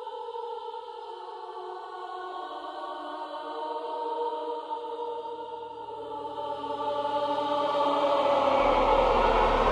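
Background music of sustained choir-like voices, swelling steadily louder in its second half as a rising wash of noise builds into eerie, suspenseful music.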